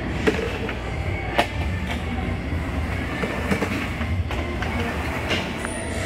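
Plastic toy kitchen pieces clicking and clattering a few times as they are handled, over a steady low rumble.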